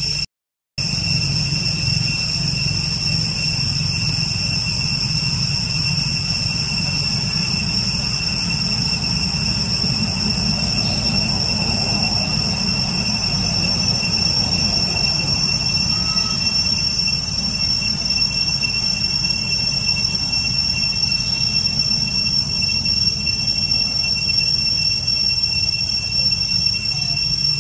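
Steady drone of forest insects, several high unchanging pitches held throughout, over a low rumble.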